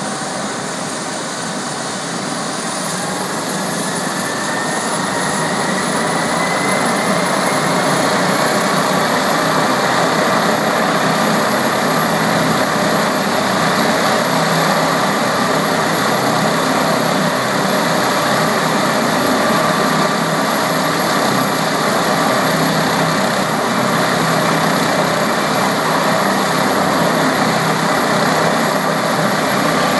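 Air ambulance helicopter's turbine engines winding up: a high whine rises in pitch and the running noise grows louder over the first several seconds, then holds steady at full running speed.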